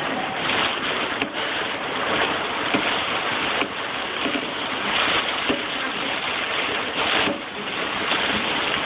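Storm noise: strong wind and driving rain, with waves breaking and spraying against the shore and moored boats. The rush swells in gusts several times.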